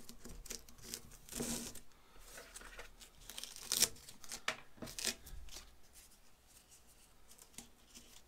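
A hook-and-loop Velcro strap being threaded through slots in a metal rack-mount shelf and pulled by hand: a string of short rasping, ripping and rustling noises, the loudest a little under four seconds in, fading to quieter handling over the last few seconds.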